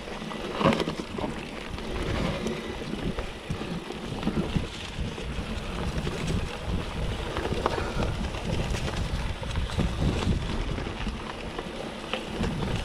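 Mountain bike riding over a grassy dirt trail: tyres rolling and the bike knocking and rattling over bumps, with wind rumbling on the microphone.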